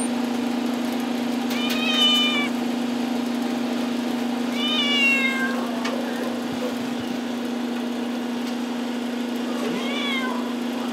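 A caged animal in a shelter kennel crying three times, high and drawn-out, the longest cry about five seconds in falling in pitch. A steady low hum runs underneath.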